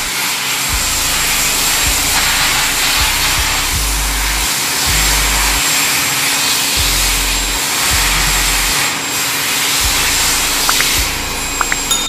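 Handheld electric air blower running steadily, its hose blowing dust out of a smoke detector head that had set off the fire alarm; it stops about a second before the end.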